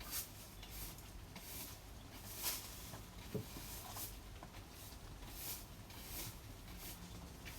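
Colouring strokes scratching across paper: a string of short, dry swishes at an uneven pace, about one every half second to second.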